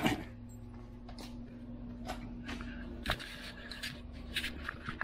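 Faint steady hum with scattered small clicks and rustling from handling, and one sharper click about three seconds in.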